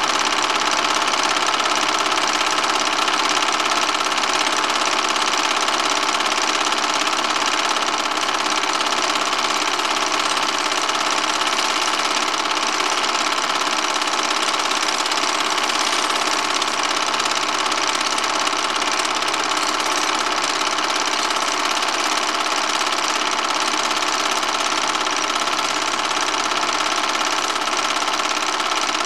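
Film projector running: a steady mechanical whirr with a constant high whine in it, unchanging throughout.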